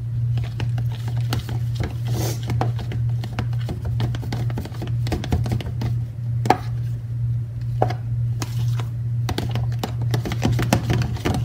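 A spoon stirring a thick mixture of sour cream and cream of chicken soup in a bowl, with irregular scraping and tapping clicks against the bowl, over a steady low hum.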